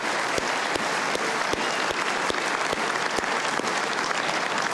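Ballroom audience applauding steadily: a dense, even patter of many hands clapping.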